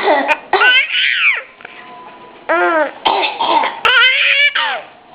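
A woman coughs in short sharp bursts, and a baby girl laughs between them in high, bending squeals.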